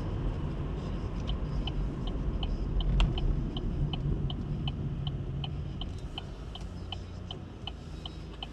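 Car turn-signal indicator ticking steadily, about three clicks a second, starting about a second in, over the low rumble of the 1.7 CDTI diesel engine and road noise inside the cabin.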